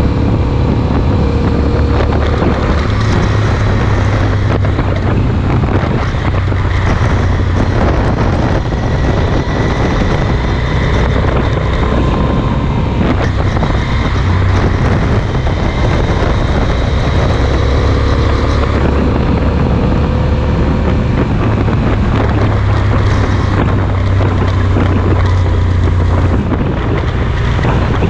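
Yamaha Super Ténéré parallel-twin engine, fitted with a Mivv Speed Edge aftermarket exhaust, running steadily at motorway speed. Its low drone is mixed with heavy wind rushing over the microphone.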